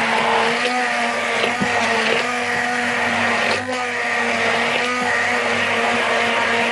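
Electric immersion hand blender running steadily while beating raw eggs in a plastic bowl, its motor whine wavering slightly in pitch as the load shifts, with a brief dip about three and a half seconds in.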